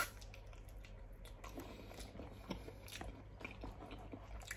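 Close-up mouth sounds of a man eating raw seafood: soft, wet chewing smacks and small clicks, with one sharp click right at the start.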